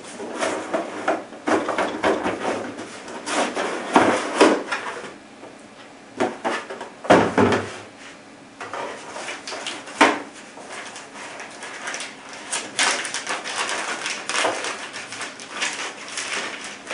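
Cardboard box being opened and handled: the lid scraping as it slides off and is set down, with several knocks. Paper rustles near the end as the instruction manual is lifted out.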